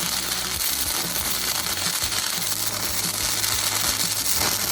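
Stick-welding arc crackling and hissing steadily as the electrode is run along a bevelled groove in thick metal, the rod dragged in the groove to keep a short arc.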